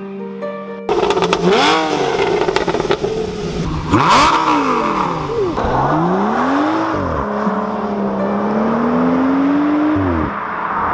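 High-performance car engines revving, their pitch climbing and dropping in several rev blips. The sound changes abruptly twice, as if separate clips were joined.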